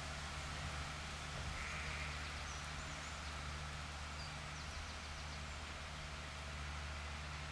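Fendt Farmer 311 LSA tractor's diesel engine running steadily while it drives a Kuhn GF 502 rotary tedder through cut grass. A short, higher-pitched call, like a distant bleat, sounds about two seconds in.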